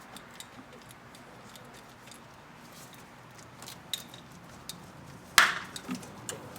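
Faint small metal clicks as a hand works the new PCV hose's spring clamp, then one sharp metallic snap about five seconds in followed by a few lighter clicks: the spring clamp snapping shut onto the hose as its holding clip is pulled off.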